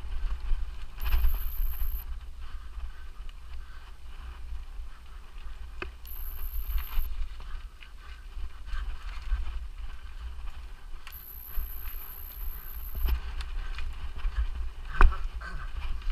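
Mountain bike ridden fast over a rough forest trail, heard from a camera riding along: a steady low wind rumble with rattles and knocks from the bumpy ground, the loudest knock about fifteen seconds in. A high thin whine comes and goes three times, a second or two each.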